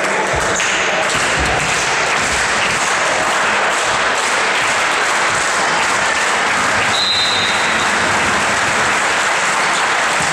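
Spectators and players in a gym hall clapping steadily after a point, with a short referee's whistle about seven seconds in signalling the next serve.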